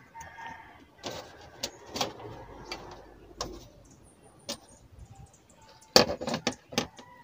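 Clicks, knocks and rustle of a TV circuit board and its wire-harness connectors being handled and fitted on the TV's sheet-metal back panel, with a run of sharper clicks about six seconds in.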